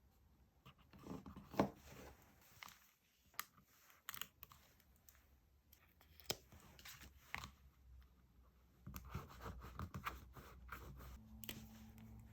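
Paper and stickers being handled on a desk: scattered short crackles and taps, with a denser stretch of rustling near the end. A low steady hum comes in just before the end.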